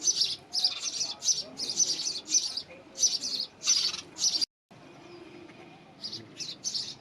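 House sparrows chirping in quick, repeated high-pitched bursts. The chirping cuts off suddenly a little past halfway and returns fainter near the end.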